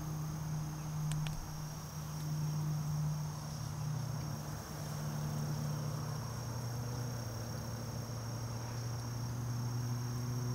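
Crickets singing a steady high-pitched trill, over a low steady hum that drops in pitch about halfway through, with a couple of faint clicks about a second in.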